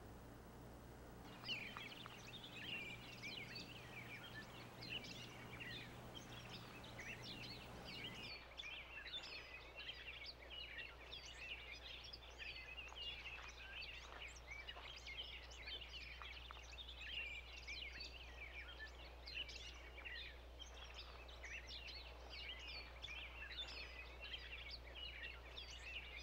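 Faint chorus of small birds chirping, a dense stream of short high chirps that starts about a second and a half in, over a steady low electrical hum.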